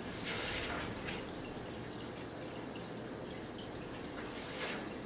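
Quiet room tone with a steady low hum, broken by a brief soft hiss about half a second in and a fainter one near the end.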